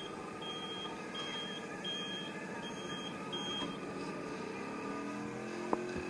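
Electric remote-control monster trucks running with a steady motor whine, under a row of short high electronic beeps a little under a second apart that stop about four seconds in. Near the end a motor whine rises in pitch and there is a single sharp knock.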